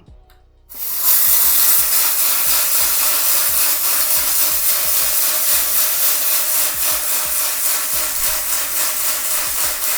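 Atomberg Zenova 550 W BLDC mixer grinder running in coarse mode (about 2000 RPM), grinding dried red chillies, coriander seeds and dal, with the hard pieces rattling and scraping inside the jar. It starts about a second in and runs loud and steady.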